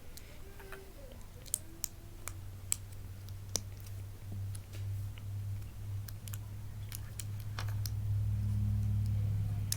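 Plastic Lego bricks clicking as they are handled and pressed together: a dozen or so scattered sharp clicks, over a steady low hum that grows louder partway through.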